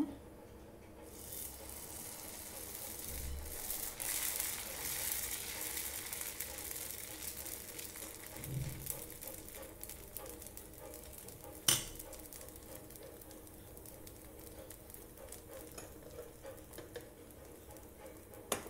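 Methi dosa batter sizzling on a hot dosa griddle as it is poured and spread in circles with a ladle; the hiss is strongest for the first several seconds, then settles to a softer sizzle as the dosa cooks. One sharp click about twelve seconds in.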